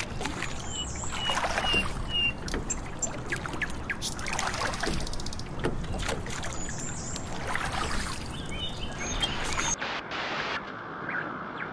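Oars of an inflatable rowing boat dipping and pulling through pond water, with irregular splashing and dripping strokes. A few short bird chirps sound in the first two seconds.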